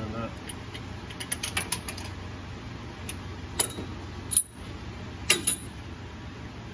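New ring and pinion gears in a Ford Super Duty's Sterling 10.5 rear differential, turned and rocked by hand during gear setup: metal teeth clicking, with a quick run of small ticks about a second in and then a few sharper single clacks.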